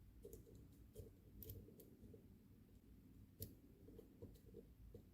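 Faint scattered metal clicks and light scraping of a dimple flag pick and tension wrench working the pins of a cheap dimple lock, with one sharper click about three and a half seconds in.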